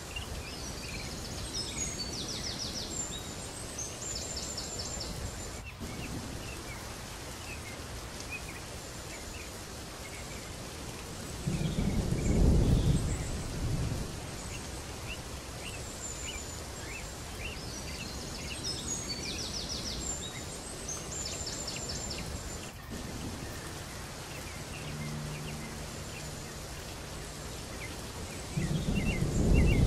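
Steady rain with birds chirping and trilling, and two low rolls of thunder, the loudest sounds, about 12 seconds in and again at the very end. The same stretch of sound repeats, as in a looped rain-and-thunder ambience track.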